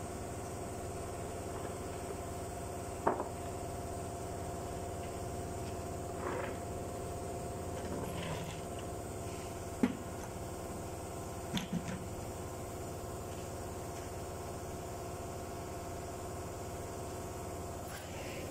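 A few short plastic knocks and clunks, the two loudest about 3 and 10 seconds in and a quick double knock near 12 seconds, as a truck's plastic air filter housing cover and filter element are taken down and set on the pavement. A steady mechanical hum runs underneath.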